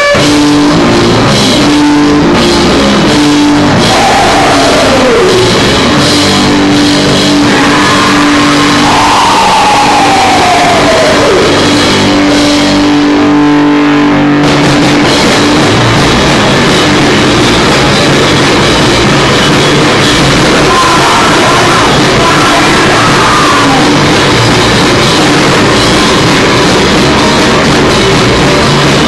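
Loud live heavy rock music from a band, with drums and distorted electric guitar, heard from within the crowd. A few seconds in and again about ten seconds in, notes slide down in pitch, and a note is held for several seconds through the middle.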